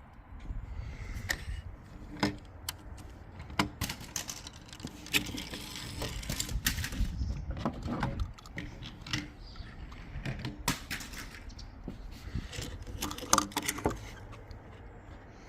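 Small toy cars clattering and knocking, a run of irregular sharp clicks with several louder knocks.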